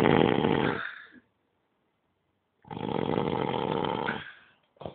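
Snoring in deep sleep: two long snores about three seconds apart, each lasting a second and a half to two seconds, with a few small clicks near the end.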